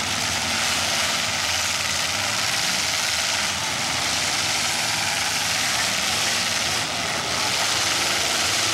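Demolition derby cars' engines running together, a steady loud din with no distinct crashes.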